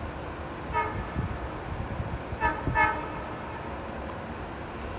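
Train horn sounding three short toots, one about a second in and two close together a moment later, over a steady low rumble.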